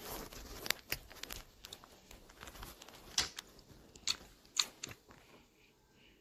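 Clear slime being pressed and squished by hand around a soft white dough ball, giving irregular wet clicks and pops that die away near the end.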